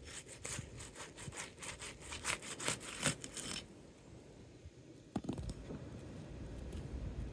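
Rapid rhythmic scraping, about five strokes a second, as a Tamko Heritage asphalt shingle is worked loose from its sealant strip, the shingle tearing in places; the strokes stop about three and a half seconds in, followed by a single sharp knock.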